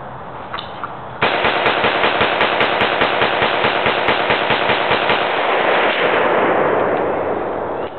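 Rapid gunfire from a firearm, fired as fast as the trigger allows at several shots a second for about four seconds. The shots then run together into a continuous noise that fades away near the end.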